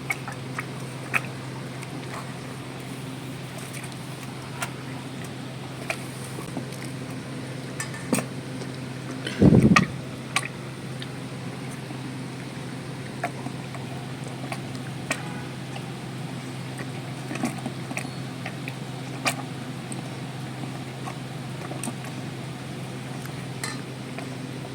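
Cow chewing fodder: scattered crunching clicks over a steady low hum, with one louder low thud about ten seconds in.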